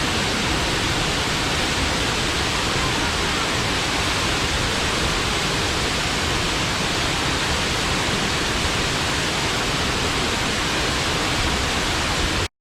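Waterfall rushing in a steady, even roar of falling water, cutting off suddenly near the end.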